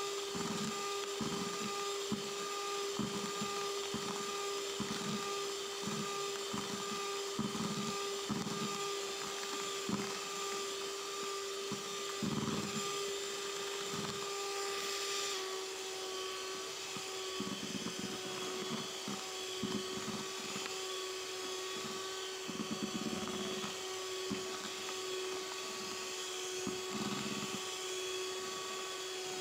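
Miyako electric hand mixer running at high speed, its motor a steady whine, as its beaters whip eggs, sugar and cake emulsifier into a thick white foam. Irregular low knocks come as the beaters hit the bowl, and the whine dips slightly in pitch about halfway through.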